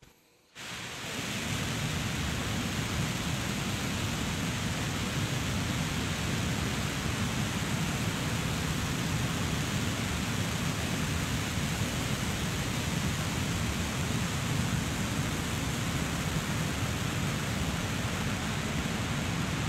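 Rocket engine test-firing on a test stand: a steady, dense rushing noise, heaviest in the low end, that starts about half a second in and holds level throughout.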